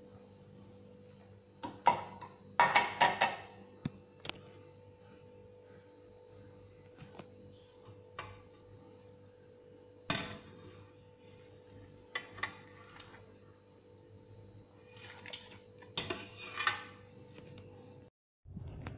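Wire spider skimmer knocking and scraping against a steel pot of potato slices in water: scattered sharp clinks, with short runs of rapid clatter about three seconds in and again near the end.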